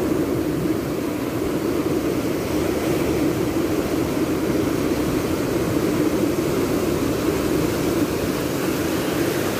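Steady rushing noise of ocean surf breaking and washing up a sandy beach.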